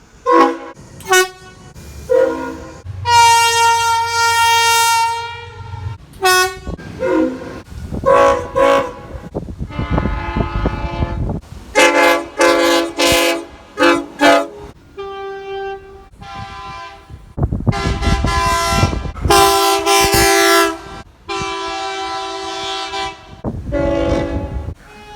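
Train air horns sounding a series of short and long blasts, several different horns heard one after another, each blast a chord of several tones. A rumble of passing trains runs under some of the blasts.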